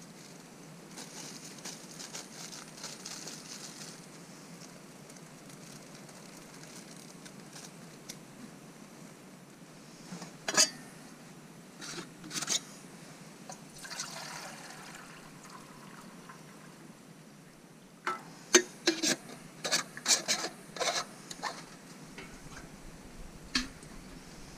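Water poured and sloshed from a titanium canteen, with sharp metal clinks of the titanium canteen cook set being handled: a few about ten seconds in and a quick run of them near the end.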